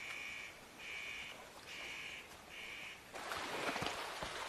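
A corvid cawing four times, harsh evenly spaced calls a little under a second apart. About three seconds in, louder splashing and rushing water takes over.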